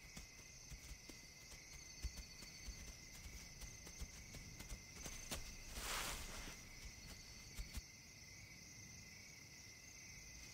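Faint steady chorus of night insects trilling, with scattered light clicks and a short burst of noise about six seconds in.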